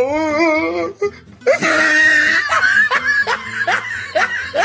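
Laughter over background music: a wavering giggle, then a loud shrieking laugh about a second and a half in, followed by a quick string of short rising laughs.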